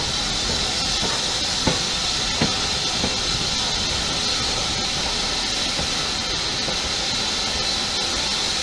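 Steady hiss of steam from a BR Standard Class 4 2-6-4 tank locomotive standing by the coaches, with three short sharp knocks in the first three seconds.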